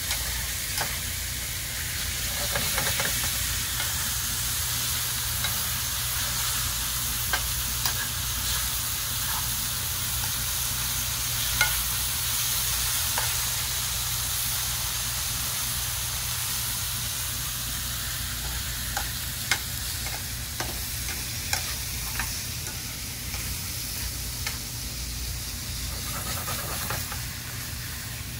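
Cubed steak searing in a hot skillet: a steady sizzle, with scattered clicks of metal tongs against the pan as the pieces are turned.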